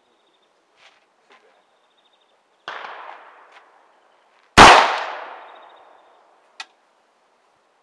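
Two rifle shots: a quieter one about two and a half seconds in, then a much louder 5.56 NATO rifle shot about two seconds later whose report rings out and fades over about a second and a half. A short sharp click follows about two seconds after it.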